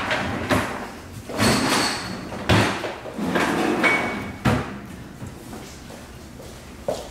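Drawers and doors of a low cabinet being opened, rummaged through and shut: a run of sliding scrapes and knocks, the sharpest about two and a half and four and a half seconds in, dying down to quieter handling after about five seconds.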